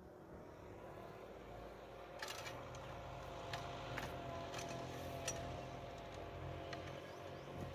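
Faint clicks and taps from a surveying range pole and its bipod leg clamp being handled and adjusted, several separate clicks from about two seconds in, over a low steady hum.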